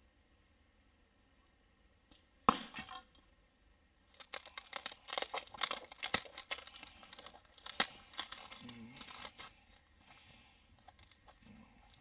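One sharp knock, then hands peeling clear tape and a paper patch off a linen-armour test panel: a run of short crackling tears and crinkles.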